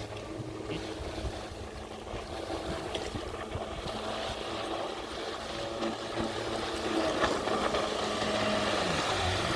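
Jet ski engine running at a steady pitch, getting louder over the last few seconds, its pitch dipping briefly near the end.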